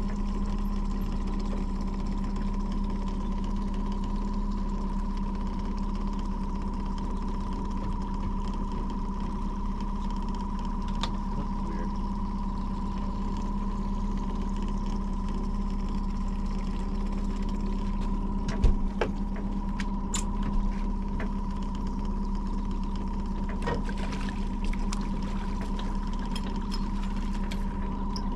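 Boat's outboard motor running steadily at slow trolling speed, a constant even hum, with water lapping and trickling at the hull. A sharp knock about two-thirds of the way in, then scattered clicks toward the end.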